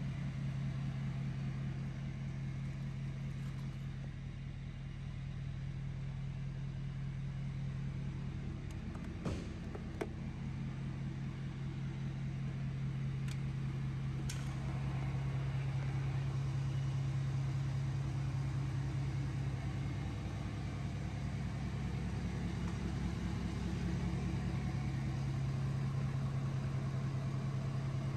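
2018 Ford F-250's 6.7-litre Power Stroke turbo-diesel V8 idling steadily, with a few light clicks about halfway through.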